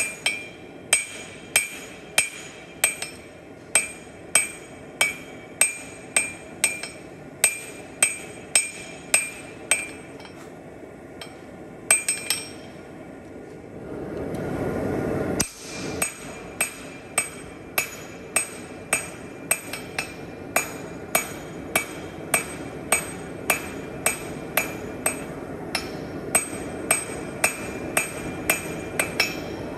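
A blacksmith's hand hammer striking steel on an anvil at about two blows a second, each blow ringing. The hammering stops for a few seconds near the middle, where a brief rushing noise sounds, then starts again.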